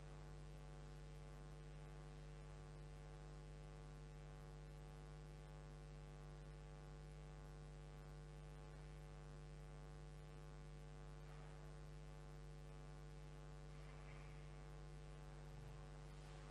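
Near silence with a steady electrical mains hum, unchanging throughout.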